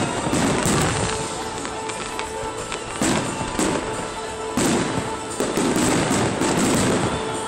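Fireworks going off: a series of sharp bangs, some in quick succession, each followed by crackling, with a dense run of bursts near the end.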